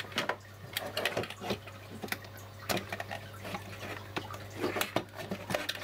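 Irregular clicks and knocks of plugs and leads being handled and pulled out of a portable energy logger, over a steady low hum.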